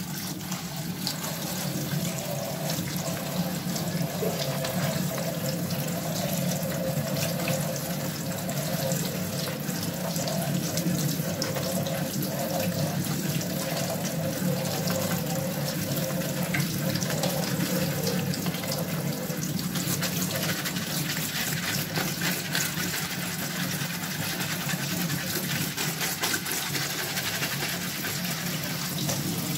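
Tap water running steadily into a plastic colander and basin of grasshoppers as hands rinse and stir them, the water splashing on the plastic.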